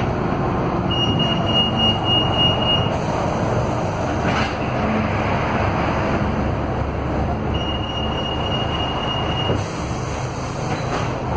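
Interior noise of a Scania K320UA articulated bus under way: the Scania DC09 five-cylinder diesel and drivetrain run with a steady rumble. A high electronic beep sounds twice, each held about two seconds.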